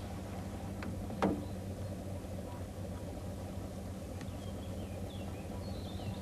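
A vintage Mercedes sedan's engine idling with a steady low hum. A single sharp click sounds about a second in, and faint bird chirps come and go.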